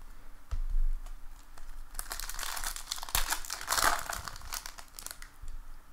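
A low knock about half a second in, then a baseball card pack wrapper crinkling and tearing open for about two seconds.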